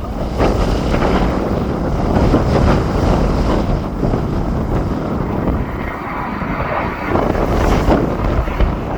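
Strong wind buffeting the phone's microphone in gusts.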